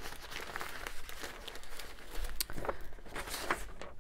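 Sheets of paper rustling and crinkling as they are handled and laid on a pile, with scattered short crackles.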